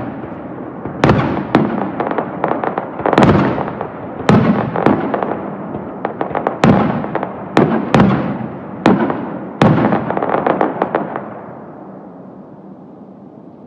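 Aerial firework shells bursting in quick succession: about ten sharp booms, each followed by a crackling, echoing tail. The barrage dies away near the end, leaving a faint rumble.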